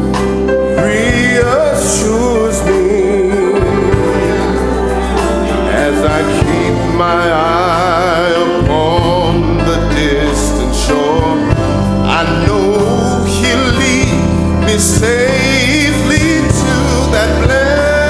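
Gospel music: voices singing with a melismatic, wavering line over sustained organ or keyboard chords and bass.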